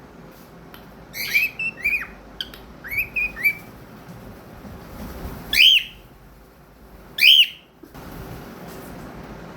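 Cockatiel whistling: a quick run of about six short chirpy whistle notes, then two louder, longer whistles sweeping upward, about a second and a half apart.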